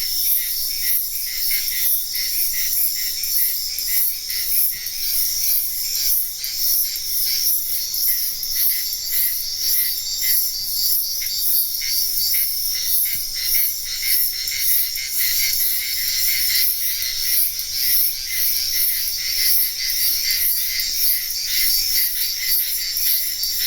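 Forest ambience: a dense, steady chorus of crickets and other insects chirping in rapid, even pulses, high-pitched throughout.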